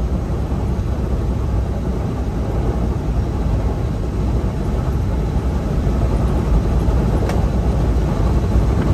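Steady engine and road noise inside a semi-truck cab while driving on the highway, growing a little louder toward the end, with one faint click about seven seconds in.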